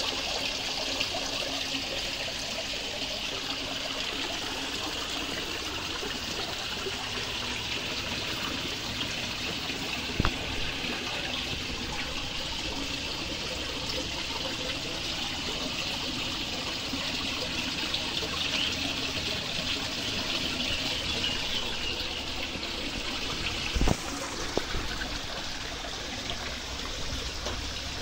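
Water from a small koi-pond waterfall spilling into the pond: a steady trickling splash. There is a brief knock about ten seconds in and another near the end.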